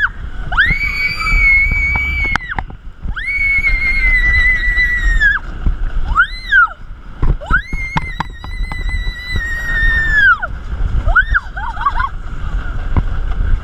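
Roller coaster riders screaming: several long, high, held screams, each swooping up at the start and falling off at the end, with shorter yelps near the end. Under them runs a steady low rumble of wind buffeting the onboard camera's microphone.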